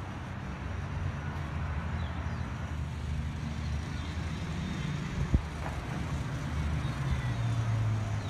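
Steady low rumble of road traffic, a motor vehicle engine running, with one sharp knock a little past five seconds in.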